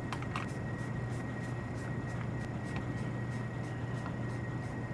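Steady low hum with a string of faint light clicks and ticks, typical of a hand screwdriver driving small screws into a server's cable cover.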